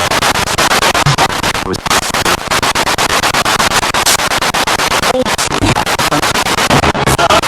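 Spirit box radio sweeping rapidly through stations: loud static chopped into a fast, even stutter, with brief snatches of broadcast voice and music breaking through.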